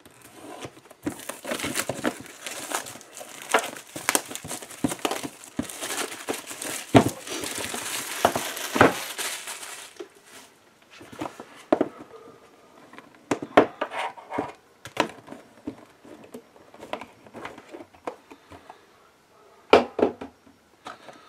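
Plastic shrink-wrap being torn off a board game box and crumpled, a dense crinkling for the first ten seconds or so. After that come scattered taps and knocks as the cardboard box is handled and opened.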